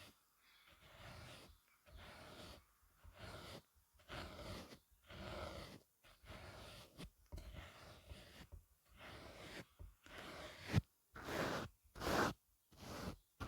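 Makeup brushes swept across the microphone in repeated soft, brushy strokes, about one a second, louder over the last few seconds, with one sharp tap about eleven seconds in.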